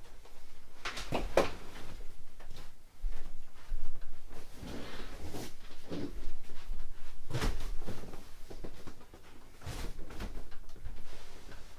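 Scattered knocks and clunks of a pull-out sofa bed being handled, about half a dozen irregular thumps with a brief rustling scrape in the middle.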